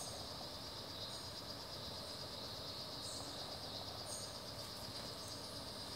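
Insect chorus: a steady high-pitched buzz, with short, higher chirps every second or so.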